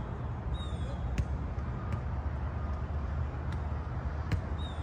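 Soccer balls being kicked on grass: three sharp thumps, about a second in, again past the middle, and the loudest near the end, over a steady low rumble. A short high falling chirp sounds twice.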